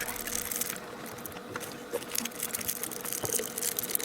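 Plastic bag crinkling and liquid sloshing as cold-pot skewers are put to soak in their broth, with dense crackling throughout.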